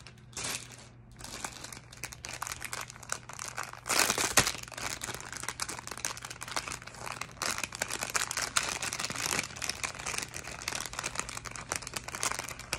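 Clear plastic packaging bags crinkling and rustling as they are handled, with a louder burst about four seconds in.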